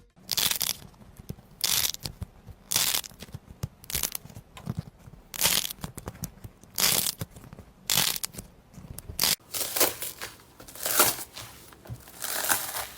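Slime being pressed and squeezed by hand, giving repeated crackling, squelching bursts about once a second.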